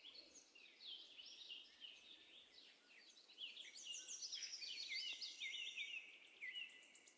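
Small wild birds calling faintly, many short overlapping chirps and whistles that grow busier and a little louder about halfway through.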